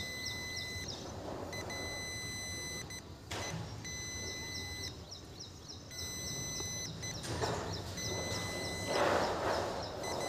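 Digital multimeter beeping in tones of about a second each, several times over, as its probes are held across a glued insulated rail joint. Short scrapes of the probes on the steel rail come between the beeps, the loudest near the end.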